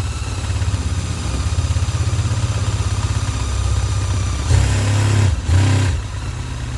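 Electric drill with a 3/4 inch bit running steadily as it bores down through plywood, with louder, rougher spells about two thirds of the way through.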